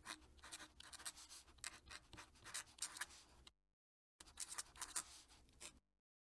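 Fountain pen nib scratching across paper in quick strokes as a signature is written. It breaks off for about half a second midway, where the pen is lifted between words, then a second run of strokes follows.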